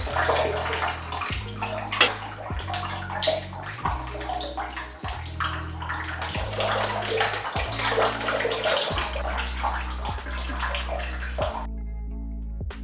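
Shower water running and splashing onto hair and tile, with a steady low bass line of background music underneath. The water stops suddenly near the end, leaving only the music.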